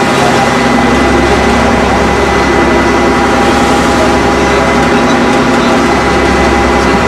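An engine running with a loud, steady drone and no change in speed.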